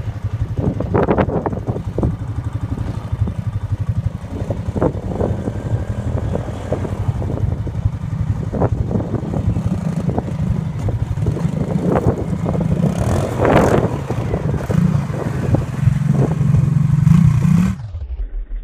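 Small quad ATV's engine running as it is ridden, with repeated throttle blips and revving surges. Near the end it drops abruptly to a steadier idle.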